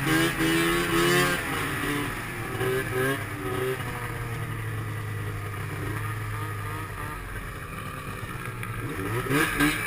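Snowmobile's two-stroke engine revving high, then backing off about a second in to low, steady running with a couple of short throttle blips, and revving up again near the end.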